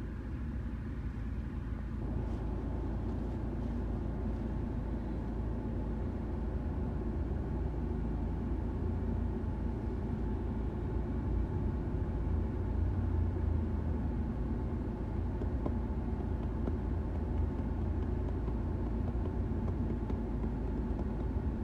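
Mahindra Scorpio's engine idling, heard from inside the cabin as a steady low drone.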